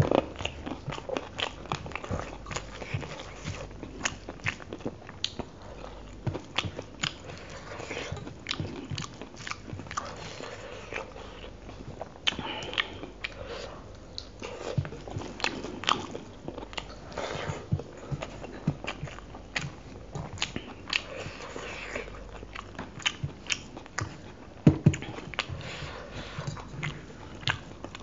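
Mouth sounds of someone eating rice and chicken curry by hand: steady chewing with many short, wet clicks and smacks.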